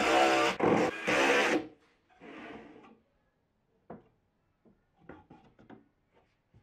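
Cordless drill driving screws into plywood, its motor whining in three short bursts over the first second and a half. After that come a few light wooden knocks and clicks as plywood parts are handled and set in place.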